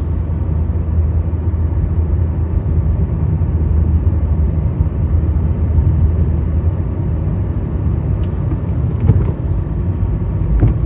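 Steady low rumble of a car being driven: engine and tyre noise heard from inside the cabin.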